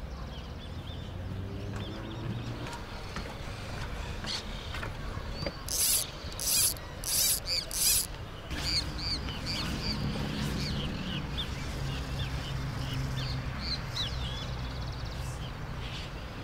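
Fly reel buzzing in four short pulls as line is stripped off it, with birds chirping in the background.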